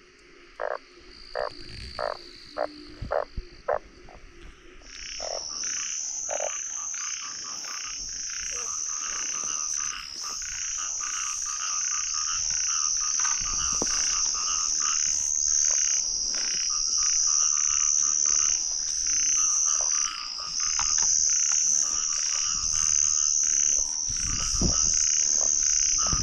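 Frogs calling after heavy rain. For the first few seconds a single frog gives regular calls, about three a second. From about five seconds a loud chorus of many frogs sets in, with a steady high trill over it.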